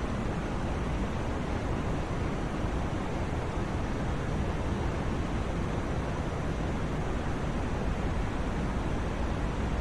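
Steady white noise for sleep: an even, unchanging hiss with no swells or breaks, weighted toward the low end so it sounds deep rather than bright.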